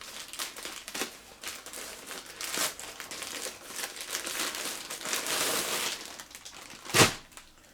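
Packaging bag crinkling and rustling in irregular strokes as it is handled and a shirt is pulled out of it, with one sharp knock near the end.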